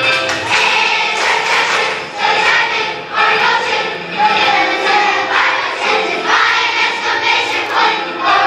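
A group of children singing a song together, with musical accompaniment.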